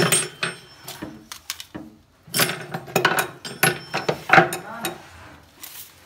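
Metal hand tools and fittings knocking and clinking against the wooden cabinet base: one sharp knock at the start, then a quick run of knocks and clinks, some ringing briefly, for about three seconds from two seconds in.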